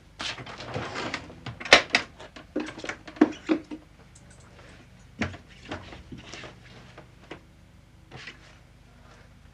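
Hands rummaging in a wooden drawer: papers and cloth rustling, with sharp knocks and clicks as things are moved about. The handling is busiest in the first four seconds, then dies down to a few faint taps.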